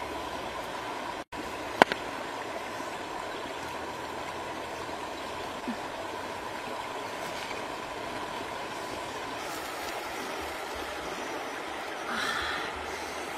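Steady rush of a shallow rocky stream flowing over stones. One sharp click about two seconds in.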